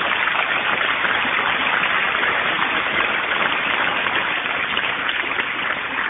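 Audience applauding after the punchline of a spoken joke: a dense, steady clatter of clapping that starts to fade near the end.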